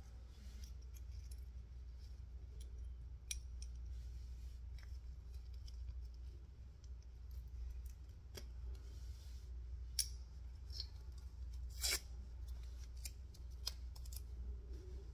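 Scattered small clicks and light metallic ticks from a plastic clothing security tag being worked apart by hand, its pin, spring and cap coming loose, with two sharper clicks about ten and twelve seconds in. A steady low hum runs underneath.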